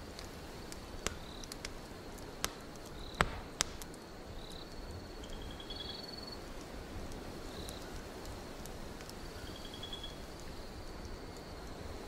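Wood fire crackling in a fireplace, with a few sharp pops, the loudest about three seconds in, over a steady hiss of wind. Crickets chirp in short pulsed trills again and again.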